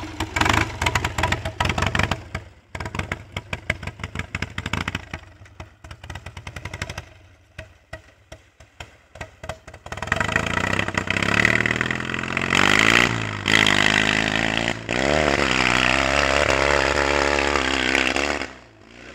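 Homemade ATV's engine running with a rapid, clattery firing beat at low revs, then revving hard and held at high revs under full throttle as it climbs a steep dirt hill, dropping off near the end.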